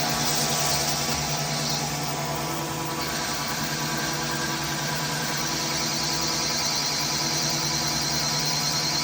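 CNC machine tool running a metal-cutting pass with a chipped carbide insert, a steady machine hum under a high hiss. The hiss drops away about two seconds in and comes back about five and a half seconds in.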